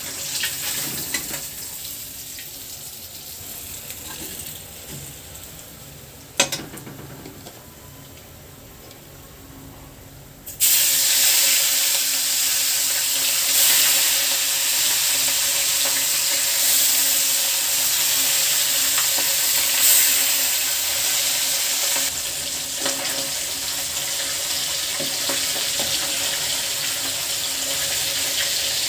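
Fish pieces frying in oil in a steel wok: a quiet sizzle with one sharp tap about six seconds in, then a sudden loud sizzle about ten seconds in as fresh fish goes into the hot oil, with steam rising, which keeps on to the end.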